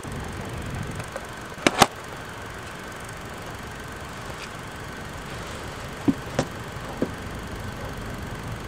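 Steady low rumble of outdoor background noise with a faint steady whine, picked up by a tape camcorder's built-in microphone. Several sharp clicks break through: two close together about two seconds in, and three more between about six and seven seconds in.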